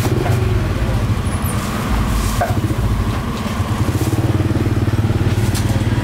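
A motor vehicle engine running close by over street noise, its fast, even putter growing stronger about halfway through.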